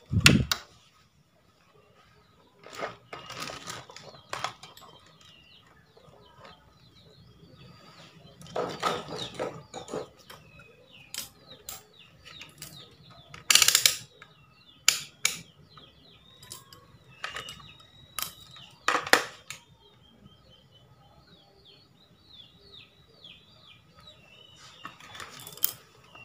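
Irregular clicks and clattering knocks of objects being handled, the loudest about halfway through, with small birds chirping in the background.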